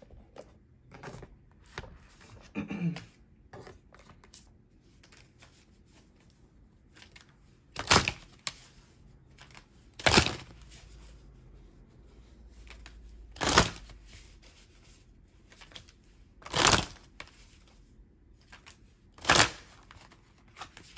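A deck of oracle cards being shuffled by hand: light card handling and clicks at first, then five short, loud swishes of the cards, about one every three seconds.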